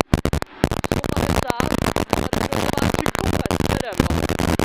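Harsh crackling, distorted noise with many brief dropouts: the onboard sound of a rally car driven at speed, recorded through a faulty in-car audio track that has broken the engine and road noise into static.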